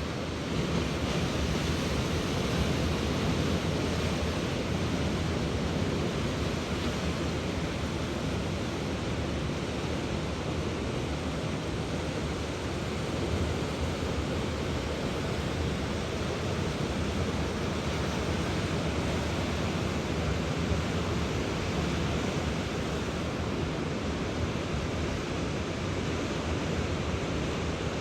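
Indian Ocean surf: waves breaking and washing in as a steady rushing noise, with no single crash standing out.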